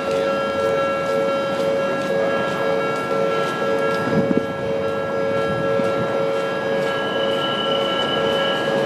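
Japanese level-crossing warning bell ringing steadily in two paired tones while an Odakyu Line commuter train runs through the crossing, with the rumble and clatter of its wheels on the rails.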